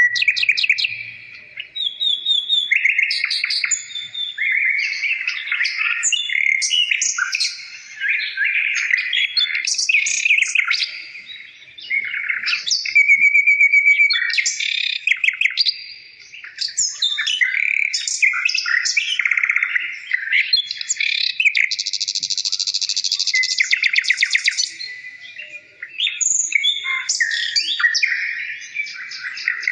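A songbird singing almost without pause: a long, varied song of rapid trills, clear held whistles and buzzy chirps, broken by short gaps every few seconds.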